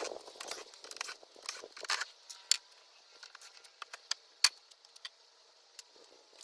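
Scattered small clicks, taps and rattles of hardware and tools being handled, with a couple of sharper clicks about two and a half and four and a half seconds in.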